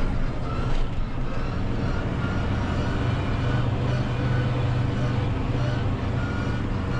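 Valtra N 121 tractor's diesel engine running steadily under load, heard inside the cab while it drives a front disc mower through grass. A faint whining tone comes and goes over the engine.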